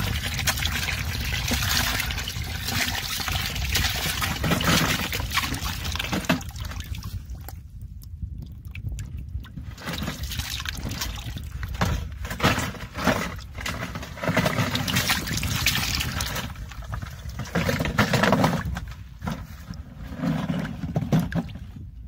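Water pouring from a large plastic bottle into a plastic bucket, with splashing as catfish slide out into the water. The pour stops for a moment about eight seconds in, then comes again in uneven splashes.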